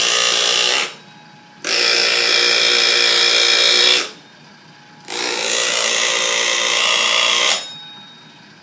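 Small electric motor spinning a driveshaft demonstration rig through two U-joints, with a steady whine. It stops about a second in, then runs twice more for about two and a half seconds each. The U-joints are set parallel, so the shaft turns at a constant speed rather than speeding up and slowing down.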